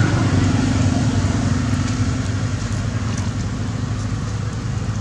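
Steady low mechanical hum of a running motor, with a rumbling wash of noise under it.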